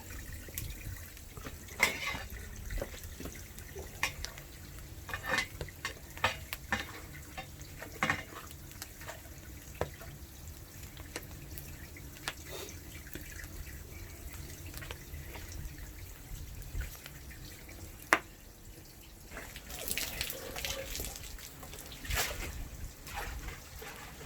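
Water splashing and dripping in a sink or basin, with scattered small splashes and clatters, as boiled young radish greens are handled in water.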